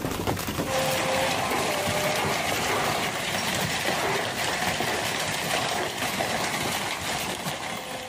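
Heavy hail falling hard: a dense, steady hiss of hailstones pelting the ground and plants, cutting off suddenly at the end.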